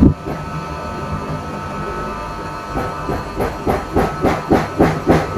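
Handling noise as a solar panel's cable is connected to a portable power station: a sharp knock at the start, a steady hum underneath, then a run of quick knocks and clicks over the last couple of seconds.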